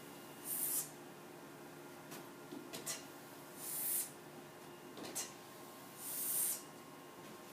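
Three short hissing "shh"-like sound effects about three seconds apart, each preceded by a few small clicks, made as the capital X is written.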